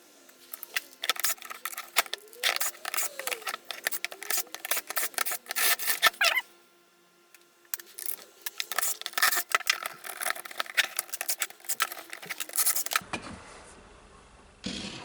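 Small screws being taken out of a cordless circular saw's plastic housing: rapid clicking and scraping of the driver, screws and plastic, with a pause about six seconds in.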